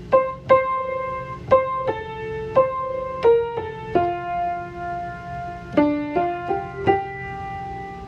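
Instrumental music: a slow piano melody of about a dozen single struck notes, the last one held.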